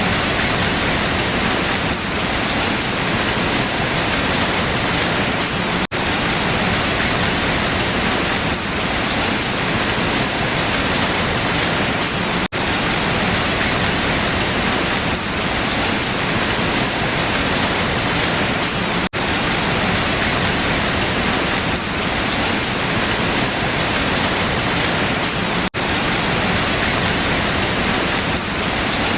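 Steady heavy rain falling on leaves, a dense even hiss, broken by a brief dropout about every six and a half seconds.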